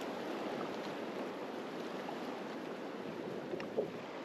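Shallow river water running steadily over rocks, an even rushing sound.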